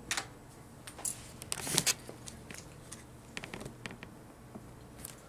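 Faint clicks and light rattling of handling, over quiet room tone. The rattling is loudest in a short cluster about a second and a half in, with a few more small ticks past the middle.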